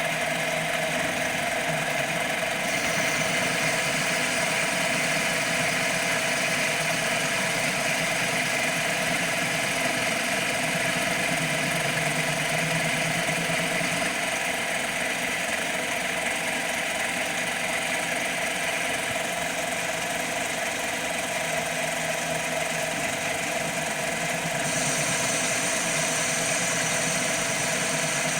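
CNC mini lathe running steadily as it turns a ball radius: the spindle motor's whine with the hiss of the tool cutting the workpiece. The higher hiss changes about three seconds in and again near the end.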